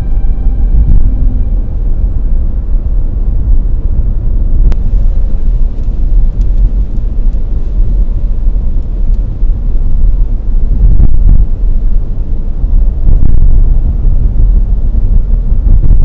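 Loud low rumble that rises and falls unevenly, with no distinct pitch, and a single sharp click about five seconds in.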